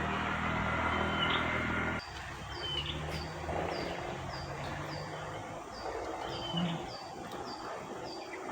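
Wild birds calling: a short call repeating every second or two, joined about two seconds in by a run of quick falling chirps, about two a second. A steady low hum stops abruptly about two seconds in.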